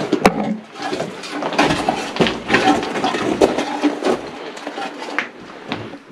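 Rocks and debris being shifted by hand: irregular knocks, clicks and scrapes, closely spaced.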